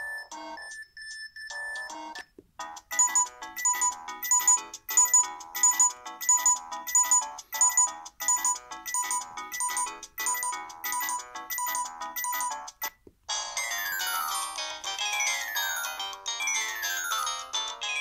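Samsung SGH-T400 phone playing its built-in polyphonic ringtones through its loudspeaker. One tone ends about two seconds in; after a short pause a rhythmic chiming ringtone ("Bell 2") repeats its phrase for about ten seconds. About 13 seconds in a different tone ("Bell 3") starts, made of repeated falling sweeps.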